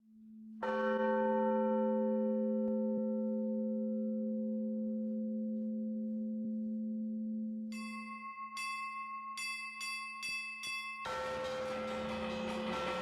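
Russian Orthodox church bells. A large bell is struck once and rings with many overtones, slowly dying away. A small high bell then strikes several times in quick succession, and near the end many bells ring together in a full festal peal.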